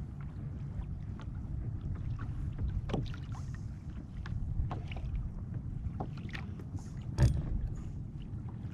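Light chop lapping against the plastic hull of a Hobie Compass pedal kayak, with a steady low rumble of wind on the microphone and scattered light ticks. One sharp knock against the kayak comes about seven seconds in.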